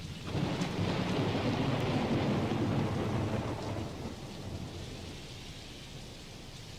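Thunder rolling over steady rain: the rumble swells just after the start, stays strong for about three seconds, then dies away into the rain.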